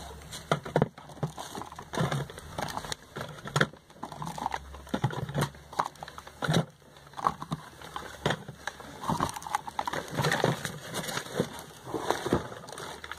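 Small cardboard cosmetic boxes being picked up and moved off a table: irregular light knocks and taps, with crackling of packaging.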